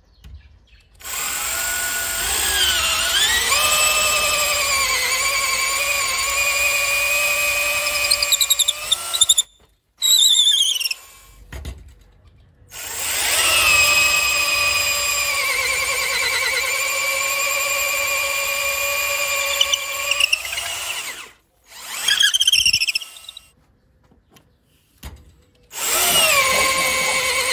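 Parkside PABH 20-Li B2 cordless drill's motor whining as it bores into a block of wood: two long runs of several seconds and a third starting near the end, the pitch dipping as the bit bites and rising again, with short bursts between them.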